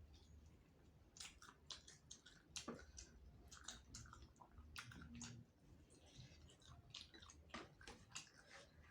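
Close-up chewing and crunching of soft-boned chicken heads, made up of irregular wet crunches and clicks of the mouth.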